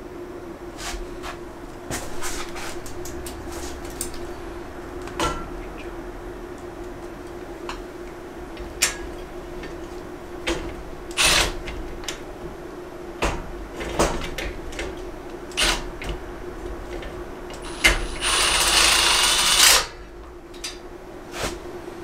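Scattered metal clinks and knocks as steel rack parts are handled and fitted, over a steady low hum. Near the end a cordless drill/driver runs for about two seconds with a high whine, driving a screw into the steel rack frame.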